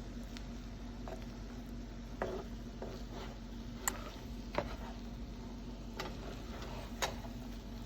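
A spoon stirring rice in a cooking pot, giving faint, scattered clicks and taps against the pot about once a second, over a low steady hum.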